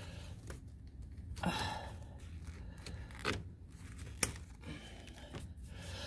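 Quiet handling noises as gloved hands move car wiring and pick up a pair of wire cutters: soft rustles and light knocks, with a sharp click about four seconds in.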